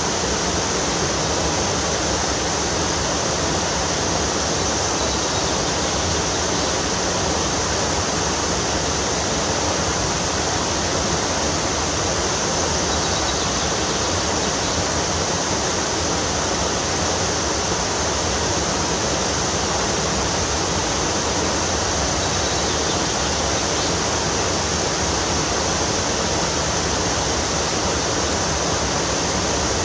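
Rushing river water: a steady, unbroken rush of fast-flowing water.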